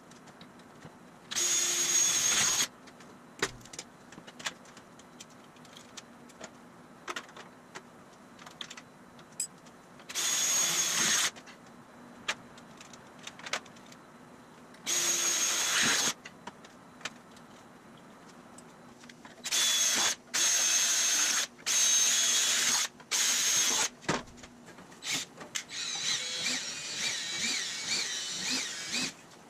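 Cordless drill running in short bursts of about a second with a steady whine, several bursts in quick succession about two-thirds through, with small metallic clicks between. Near the end it drills into aluminum sheet, its whine wavering under load.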